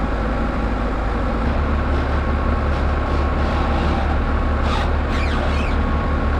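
Woodmizer LT15 Wide portable band sawmill running steadily, its engine note dropping a little about a second and a half in as the blade works through a white oak log.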